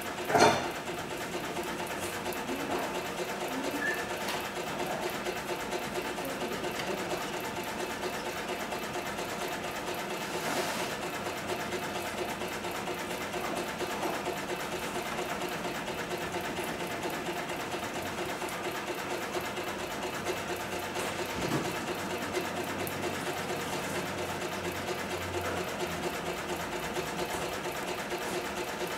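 Cowboy 7461-37 extra-heavy-duty long-arm cylinder-bed walking-foot lockstitch machine sewing thick padded material at a steady speed: a rapid, even stitching rhythm over a steady motor hum. A sharp knock about half a second in is the loudest sound.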